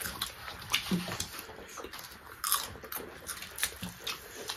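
Close-up mukbang eating sounds: people chewing and crunching food, with wet mouth clicks and smacks at an irregular pace and a few short hums.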